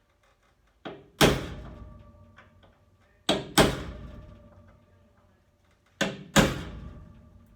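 Three pairs of heavy blows on metal, each pair a light hit then a harder one, coming about every two and a half seconds, with the struck sheet metal ringing out after each.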